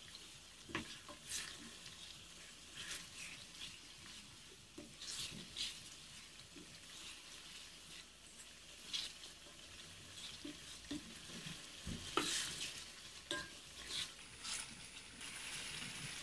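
Wooden spoon stirring a thick meat-and-potato curry in a nonstick pot, with irregular scrapes and knocks against the pan over a faint sizzle of the mixture frying.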